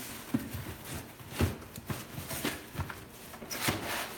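Irregular knocks and scrapes as trays are worked out of a crushed cardboard box by hand, the box resisting.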